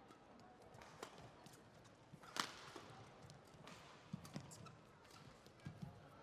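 Badminton rally: sharp clicks of rackets striking a feather shuttlecock, roughly every one to one and a half seconds, the loudest about two and a half seconds in, with a few softer knocks late on.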